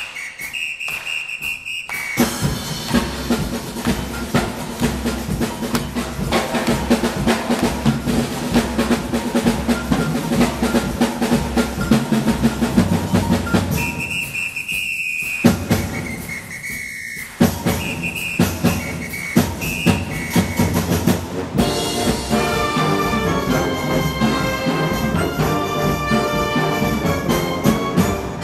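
Concert wind band's percussion break: a drum kit keeps up a Latin groove while a hand-held whistle blows calls that alternate between two high pitches, near the start and again about halfway through. Near the end the full band, brass included, comes back in.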